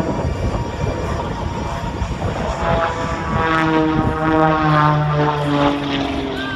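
Pitts Special aerobatic biplane's engine and propeller droning overhead, the pitch of its buzz shifting up and down several times as it manoeuvres, clearest in the second half.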